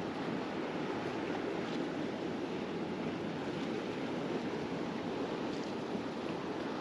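Steady wash of waves and surf, with some wind.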